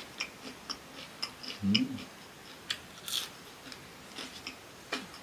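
Close-miked chewing of crisp fried cassava: a steady run of small crunches and wet mouth clicks, with a short low hum about two seconds in.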